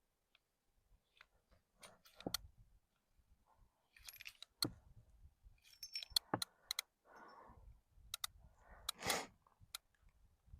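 Faint, scattered metallic clicks and clinks from a Ruger Single-Six single-action .22 revolver being unloaded: the cylinder is turned with the loading gate open and the cases are pushed out one at a time with the ejector rod.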